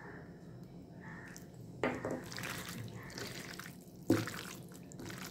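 Wet squelching of raw chicken pieces being squeezed and turned by hand in a thick, oily spice marinade of mustard oil and onion, ginger and garlic paste. There are sharp squishes about two seconds in and again about four seconds in, with softer ones between.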